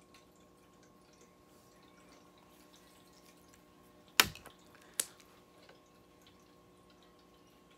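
Two sharp clicks, the first the louder, less than a second apart near the middle, as eyeliner pens are swapped on the makeup table, over a faint steady room hum.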